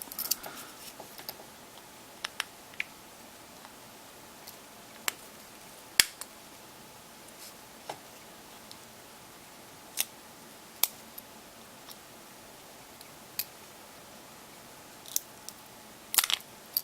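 Sharp, sporadic plastic clicks and taps from a smartphone's small internal parts being handled and fitted by hand, about a dozen spread out, with a quick cluster near the end.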